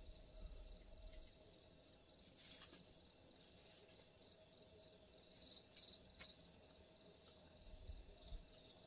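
Faint, steady high-pitched chirring of insects, with three louder pulses about five and a half seconds in.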